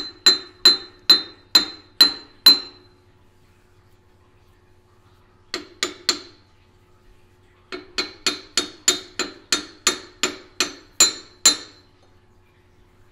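Sharp, ringing hammer taps on a steel crankshaft workpiece clamped in a milling-machine chuck, two to three a second in three runs: about seven, a pause, three, then about a dozen. The taps nudge the crank over by thousandths of an inch to centre its big end journal while it is clocked with a dial indicator.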